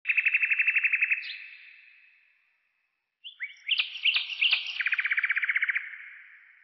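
A songbird singing: a rapid high trill, a pause, then a few slurred whistled notes and a second trill, each phrase trailing off in a long echo.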